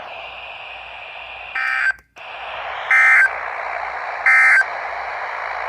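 Emergency Alert System end-of-message data bursts: three short, evenly spaced bursts of warbling digital tones over a steady radio hiss, with a brief dropout right after the first. They signal the end of the alert message.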